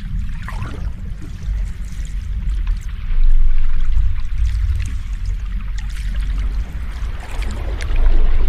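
Sea waves washing in: a steady low rumble that swells about three seconds in and again near the end, with a faint fizzing hiss of foam over it.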